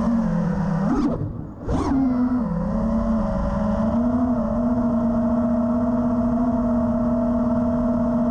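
FPV freestyle quadcopter's brushless motors whining. There is a quick throttle blip about a second in, a short drop and then a sharp punch near two seconds, after which the motors hold a steady pitch.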